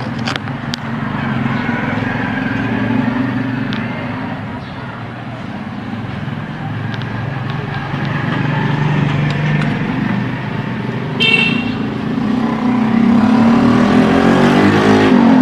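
Road traffic going by: engines running steadily, a short horn toot about 11 seconds in, and a vehicle getting louder as its engine revs up near the end.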